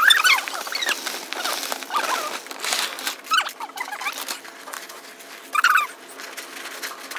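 Sped-up audio: short, squeaky, high-pitched snippets of chattering voices, with the grainy rustle of potting soil being poured from a bag and worked by hand in a plastic pot.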